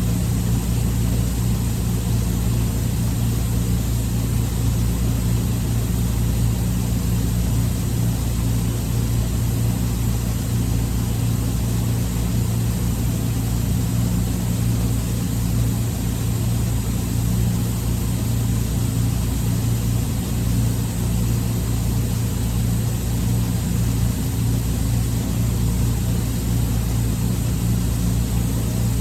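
Steady low mechanical drone, like a running engine or machinery, holding an even pitch and level with no changes.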